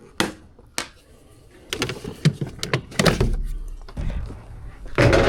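A series of sharp clicks and knocks of hard objects being handled, with a loud heavy thump near the end.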